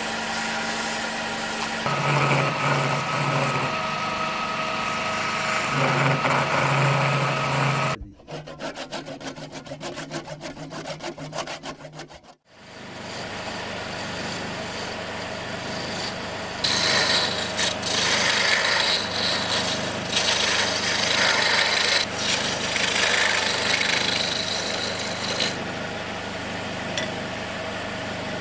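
Wood lathe running while a hand-held turning tool cuts the spinning boxwood, a steady scraping, shaving sound over the lathe's motor hum. There is a quieter break of a few seconds about a third of the way in.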